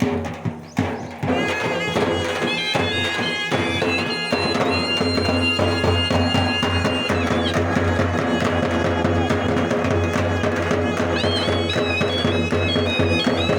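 Loud traditional music: drum strokes at first, then a wind instrument playing a melody of held, wavering notes over a steady low drone.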